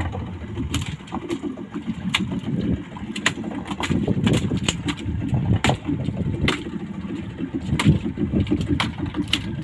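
Small outboard motor of a wooden fishing boat running, with wind on the microphone, a rough low rumble that rises and falls. Sharp, irregular knocks come every second or so.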